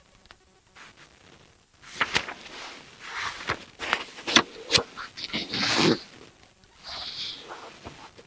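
Pages of a paperback textbook being leafed through and handled close to a clip-on microphone: a string of short paper rustles and sharp snaps, with a brief rustle again near the end.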